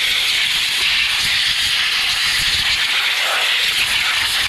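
Compressed air blow gun hissing steadily as it blows dirt from around the spark plugs of a flathead engine before they are pulled, then cutting off at the end.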